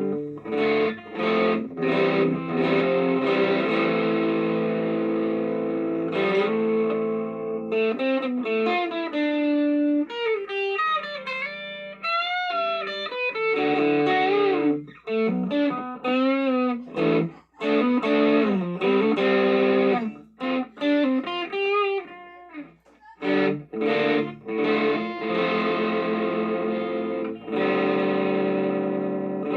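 Electric guitar played through a Donner Dumbbell Drive overdrive pedal into a Spark amp, with drive and treble turned up. Ringing strummed chords come first, then a single-note lead line with bends and vibrato through the middle, then chords again near the end.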